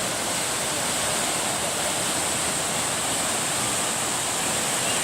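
Tegenungan Waterfall pouring into its plunge pool: a steady, full rush of falling water.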